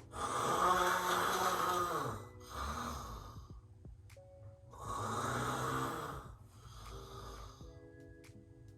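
A woman's deliberately exaggerated, fake snoring. Two long loud snores, one at the start and one about five seconds in, each followed by a shorter, softer one.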